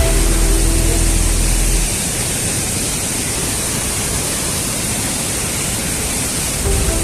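Steady rushing roar of a monsoon-fed waterfall, an even wash of noise. Background music with a deep bass fades out about two seconds in and returns near the end.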